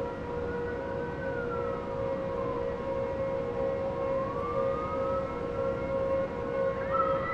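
A steady droning tone with a higher, siren-like wailing tone over it that slowly rises and falls, twice.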